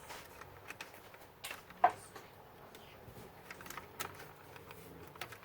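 Scattered light clicks and taps of laptop parts being handled on a bench, with one sharper knock about two seconds in.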